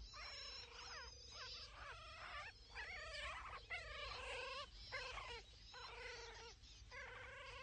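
Wolf pups whimpering and mewling: a run of short, high, wavering cries, each under a second, one after another.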